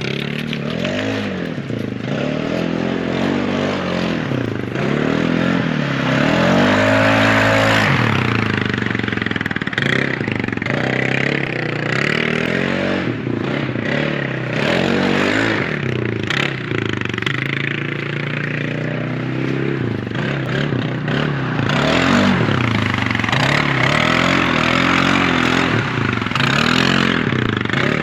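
A four-wheeler (ATV) engine being ridden hard, revving up and dropping back again and again, its pitch rising and falling every two to three seconds.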